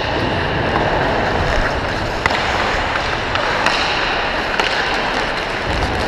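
Ice hockey skate blades scraping and carving the ice in a steady hiss, with a few sharp clacks of sticks and puck.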